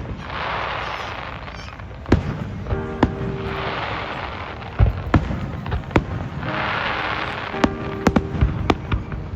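Fireworks going off: a run of sharp bangs, several in quick succession near the end, between stretches of hissing crackle.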